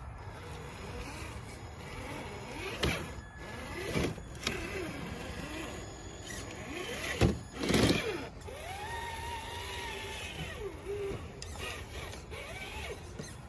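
Traxxas TRX-4 Bronco RC crawler's electric motor and gear drivetrain whining, rising and falling in pitch as the throttle is worked. Several sharp knocks come from the tyres and chassis striking the rocks, the loudest a little past the middle. Soon after those knocks comes a longer whine that rises, holds and falls away.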